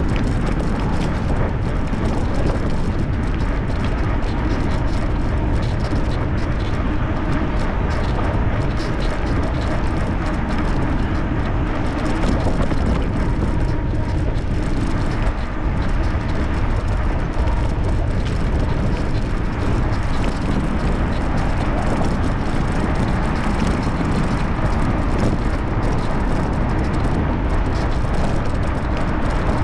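Wind rushing over the camera microphone while riding an electric bicycle, a steady rush that is heaviest in the deep end, with the bike's rolling noise mixed in.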